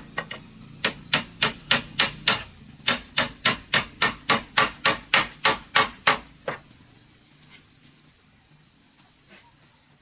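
Hammer blows on wood in a quick, steady run of about three to four strikes a second, with a brief pause after about two seconds, stopping about six and a half seconds in.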